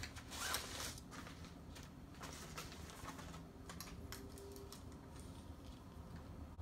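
A tripod being handled and lifted out of its box: scattered light clicks and a brief rustle about half a second in, over a low steady room hum.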